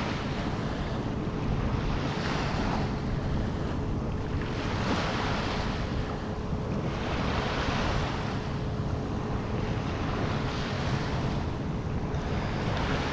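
Small waves washing onto the beach, swelling and easing every two to three seconds, with wind buffeting the microphone.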